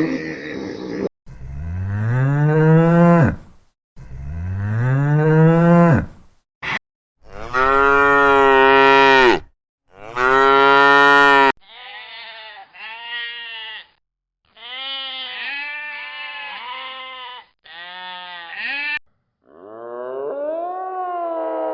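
Cows mooing: a string of separate long moos, several rising in pitch, followed by shorter wavering calls. Near the end a different wavering call begins.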